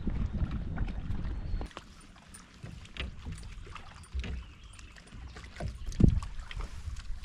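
Handling sounds on a fishing kayak on the water: a low rumble for the first second and a half, then quieter with scattered small knocks and clicks and one louder thump about six seconds in.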